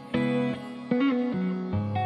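Background music: an instrumental passage led by guitar, with new chords struck every second or so.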